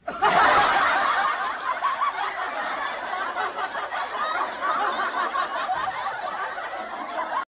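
Laughter: a continuous stream of snickering and chuckling that starts abruptly, fades a little, and cuts off suddenly near the end.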